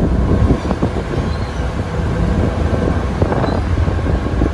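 Steady low rumble of a moving boat under way, with wind buffeting the microphone in irregular crackles and knocks.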